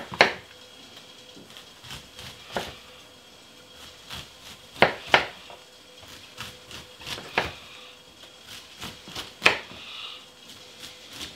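Knife slicing through a head of cauliflower and knocking on a cutting board: irregular sharp knocks a second or two apart.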